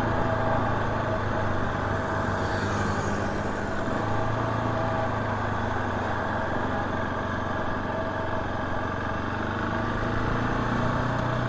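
Single-cylinder engine of a KTM 690 SMC R supermoto idling steadily at a stop.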